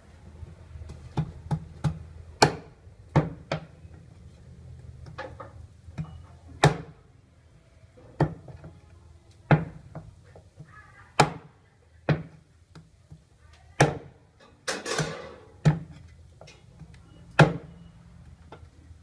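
Cleaver chopping raw goose on a thick wooden chopping block: about fifteen sharp strikes at irregular intervals, some in quick succession. A longer rasping sound comes about fifteen seconds in.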